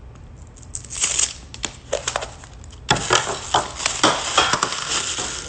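Paper wrapping crinkling and tearing as it is peeled by hand off a surprise-ball gift, in irregular rustles and snaps that come thicker from about three seconds in.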